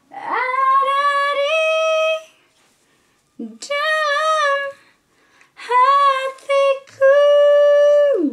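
A woman singing four long, high held notes in separate phrases, the last one sliding down in pitch at its end.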